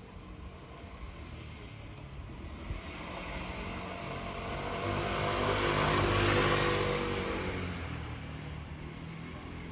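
A motor passing by: an engine sound that swells to its loudest about six seconds in, then fades away.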